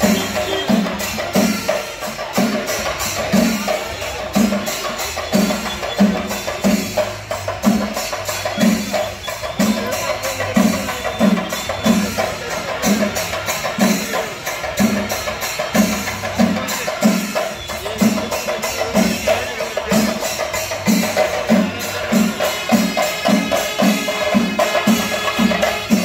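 Kerala temple percussion ensemble of chenda drums beaten with sticks: a steady beat of deep strokes about twice a second under dense rapid stick rolls, the deep strokes coming closer together in the last few seconds.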